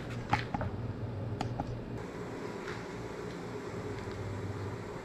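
A few sharp clicks and knocks of a metal scraper and wooden board being handled on a wooden worktable, bunched in the first two seconds, over the steady low hum of an electric fan.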